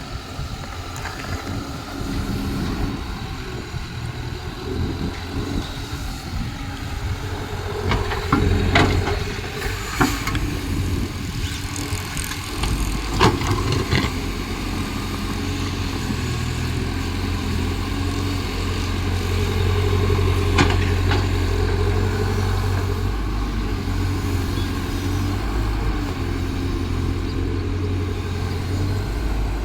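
Diesel engine of a Caterpillar excavator running steadily, its level rising for a while midway as it works under load. Sharp knocks come through every few seconds.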